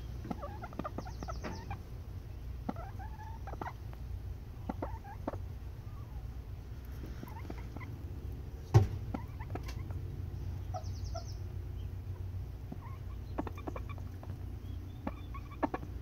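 Chickens clucking and calling on and off, with one sharp knock about nine seconds in.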